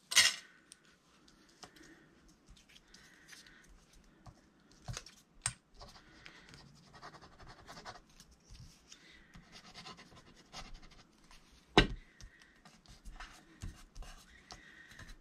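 Faint scratching and rubbing of paper pieces being handled and worked by hand, with scattered light clicks and taps. A sharp tap comes at the very start and a louder knock about twelve seconds in.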